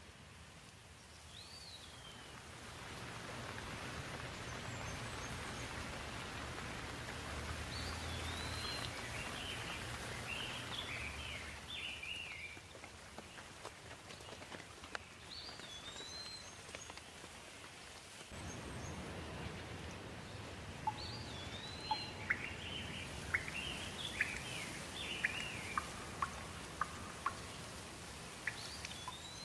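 Steady rain with small songbirds chirping and whistling in short runs over it. In the last third, sharp drip-like ticks come about once a second.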